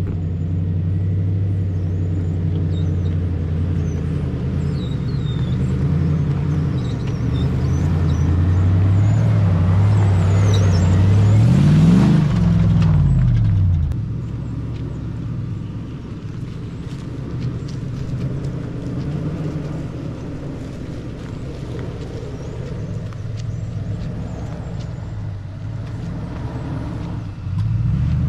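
An engine running steadily. Its pitch climbs about ten seconds in, then falls away, and the sound is quieter from about fourteen seconds on.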